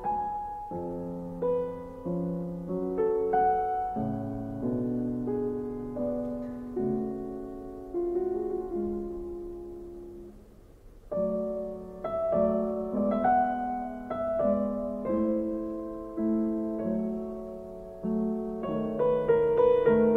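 Background music: solo piano playing slow, gentle chords and melody notes. It fades almost away about ten seconds in, then starts again and grows fuller near the end.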